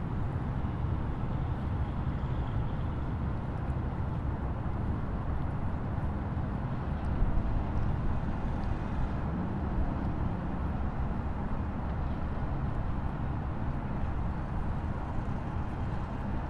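Waterfall rushing in a steady, deep rumble of falling water.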